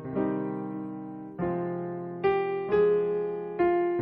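Electronic keyboard playing a slow mood kayō (Japanese ballad) melody in an electric-piano voice, notes struck about five times over sustained chords, each fading away. Digitized from an old cassette tape recording.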